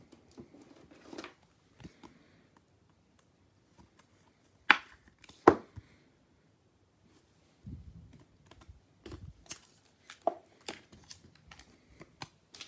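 Hands handling trading cards and plastic top loaders: scattered light clicks and taps with some rustling, and two sharp clicks about a second apart near the middle.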